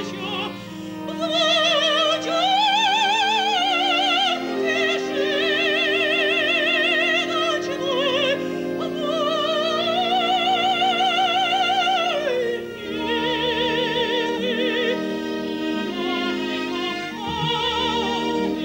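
Female operatic voice singing long, sustained notes with a wide vibrato over instrumental accompaniment. The voice pauses briefly a little before the middle, then holds a long high note, and the last part is softer and lower.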